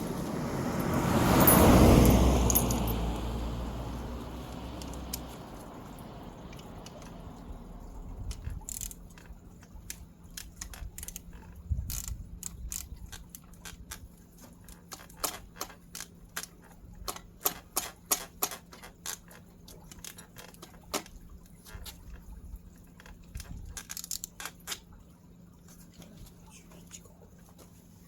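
A loud rushing noise swells and fades over the first few seconds, then scattered light metallic clinks and taps follow, like small metal parts and tools being handled.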